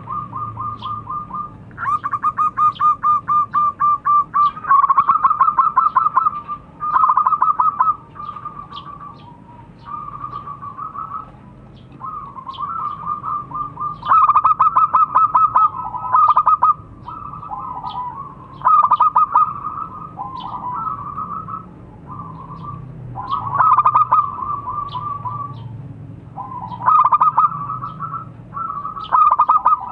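Zebra dove (perkutut) cooing: a long run of short, rapidly trilled coo phrases, each a second or two long, separated by brief pauses.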